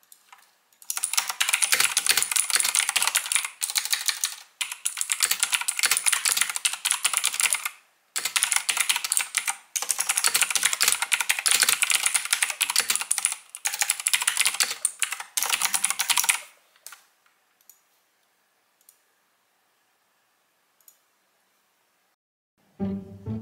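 Fast typing on a mechanical keyboard: long runs of dense key clacks broken by a few short pauses, tailing off to a handful of scattered keystrokes. Music comes in right at the end.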